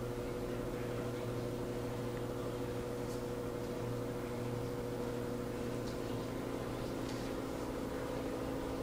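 Steady mechanical hum made of several low, even tones that do not change, with a few faint clicks over it.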